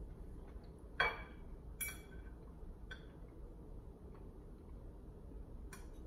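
Cutlery clinking against a plate a few times while eating, the first clink, about a second in, the loudest and ringing briefly.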